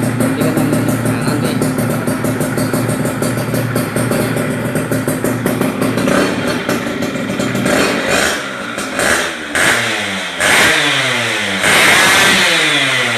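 Yamaha F1ZR's two-stroke single-cylinder engine idling through its exhaust with a rapid, even popping, then blipped several times in the second half, each rev falling back toward idle.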